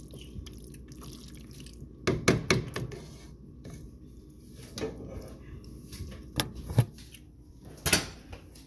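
Spoon stirring thick, creamy macaroni and cheese in a metal pot: wet, sticky squelching with several sharp clinks and scrapes against the pot, the loudest cluster about two seconds in.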